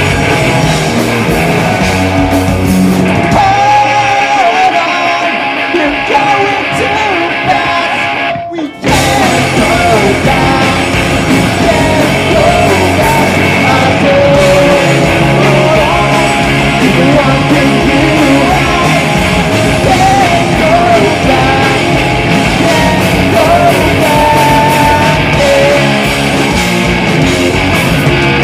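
Punk rock band playing live through a club PA: distorted electric guitars, bass, drums and shouted singing. From about 3 seconds in, the bass and drums drop back and the sound thins out. There is a brief stop just before 9 seconds, then the full band comes back in.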